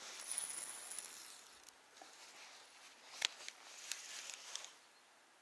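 Faint rustling and handling noise, with one sharp click a little past three seconds and a few lighter ticks after it.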